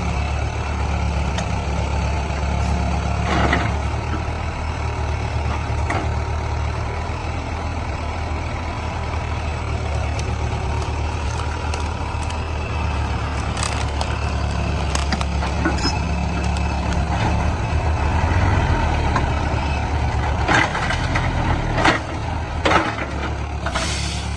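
Heavy diesel machinery engine running steadily under load, with a few sharp knocks or clanks, several of them near the end.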